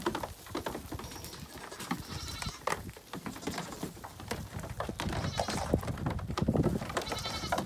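Young goat kids bleating several times in short calls, over the clatter and knocks of their hooves on plastic play equipment.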